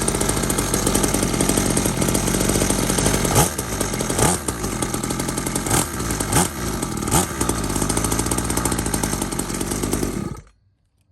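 Brand-new 49cc two-stroke dirtbike engine running, revved up in about five quick blips, then cutting off about a second before the end.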